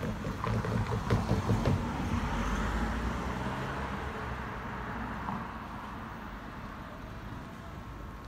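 Train running on nearby track out of sight: wheels clack over rail joints about a second in, then the rumble slowly fades away.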